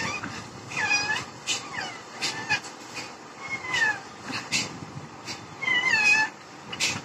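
Rose-ringed parakeet calling: about four short calls that rise and fall in pitch, mixed with several short, harsh, noisy squawks.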